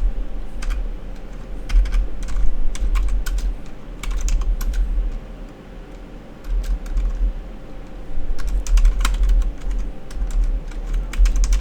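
Typing on a computer keyboard in irregular runs of key clicks with short pauses, over a low rumble.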